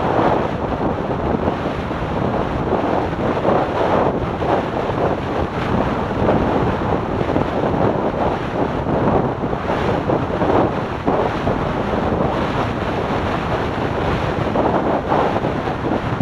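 Wind buffeting the microphone of a camera on a motorcycle at highway speed: a loud, steady rushing that swells and dips unevenly.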